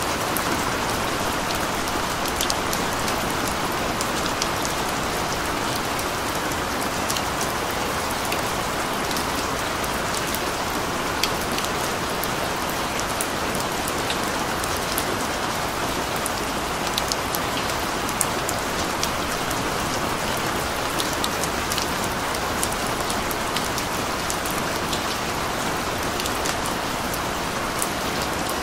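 Steady rain falling on a surface, an even hiss with many small drop ticks scattered through it.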